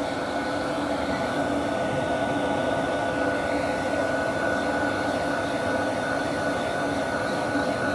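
Professional dog grooming dryer running steadily, blowing air over a dog's wet coat: a constant rush of air with a steady hum and a faint high whine.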